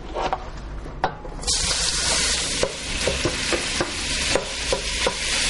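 Minced beef dropped into hot oil in a pot, sizzling from about a second and a half in as it starts to brown on high heat. A wooden spoon scrapes it from its plastic tray at first, then knocks and scrapes the pot as it is stirred.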